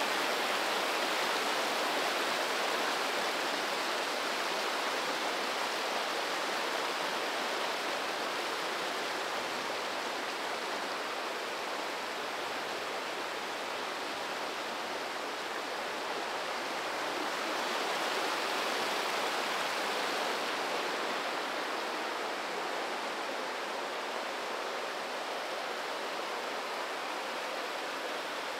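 Fast mountain river rushing over rocks: a steady, dense rush of water that swells slightly about two-thirds of the way through.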